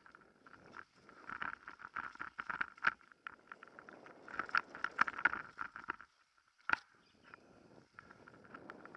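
Mountain bike rattling and clattering over a rough dirt trail: tyres crunching on the dirt, with irregular knocks and ticks from the bike. It is busiest and loudest in two stretches, goes briefly quieter after about six seconds, and has a single sharp knock near seven seconds.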